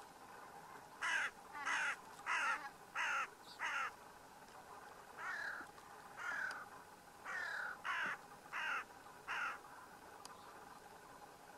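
A crow cawing in two series: five caws about two-thirds of a second apart, then after a short pause six more, the first three sliding down in pitch.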